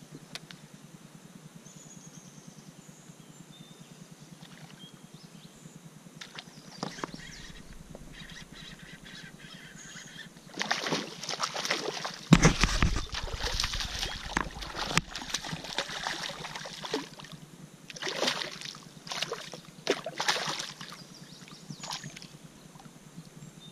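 Quiet at first. About halfway through, a fish strikes a topwater frog lure with a heavy splash, the loudest sound here, followed by a run of repeated splashes as the hooked fish thrashes at the surface.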